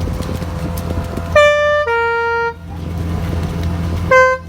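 Basuri telolet multi-tone horn sounding a two-note call, a higher note followed by a lower held one, then one short note near the end, over a steady low hum.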